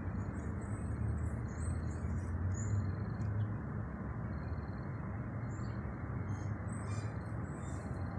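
Steady low outdoor rumble with faint bird chirps scattered through it.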